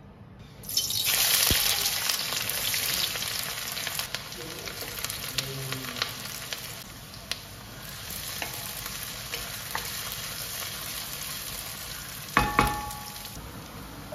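Sliced onions and spice paste frying in hot oil in a stainless steel kadai. A loud sizzle starts suddenly about a second in as they hit the oil, with a wooden spoon stirring and scraping through it. Near the end the spoon knocks on the pan with a short metallic ring.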